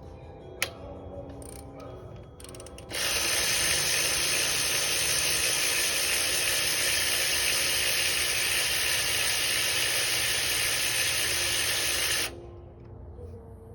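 Compressed-air tool running for about nine seconds, a loud steady hiss of air that starts and cuts off abruptly, preceded by a single sharp click.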